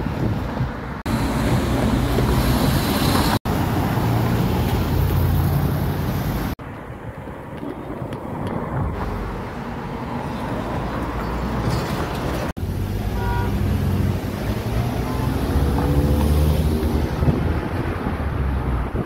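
Road traffic: car engines running and tyre noise, broken by abrupt cuts between clips. In the last third, an engine accelerates with rising pitch.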